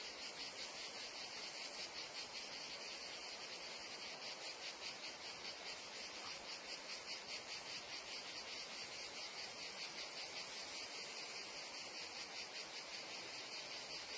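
Dense chorus of meadow insects, crickets and cicadas, chirring steadily in a high-pitched, rapidly pulsing drone.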